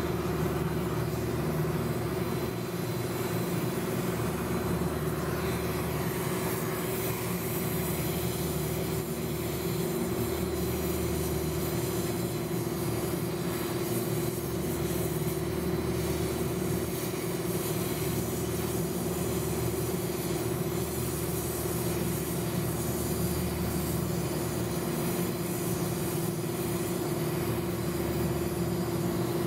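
Steady machinery drone from running rooftop HVAC equipment: a constant hum with a low rumble that swells and fades every few seconds.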